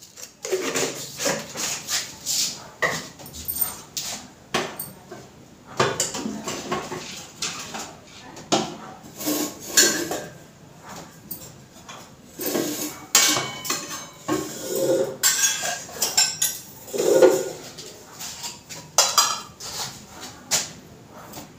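Irregular clinking and clattering of kitchen utensils and dishes, spoons knocking against bowls as they are handled.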